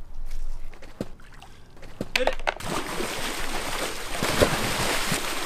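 A steady rushing hiss sets in about halfway through, then a person on a wakeboard plunges into a swimming pool with a splash near the end, the water churning after.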